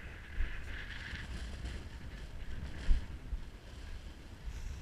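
Wind buffeting the camera's microphone in a steady low rumble with a hiss above it, broken by two short thumps, about half a second in and again near three seconds.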